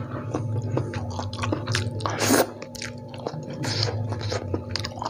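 Close-miked mouth sounds of a person eating fried instant noodles: wet chewing with small clicks. There is a louder noisy slurp a little past two seconds in and a softer one near four seconds.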